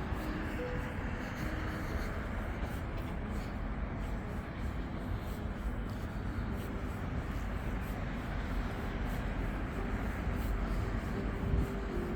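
Steady low rumble and hiss of outdoor city ambience, like distant road traffic, with faint held tones that step from one pitch to another.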